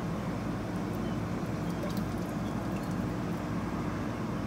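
Steady background hum and low rumble, with a constant tone throughout and a few faint ticks.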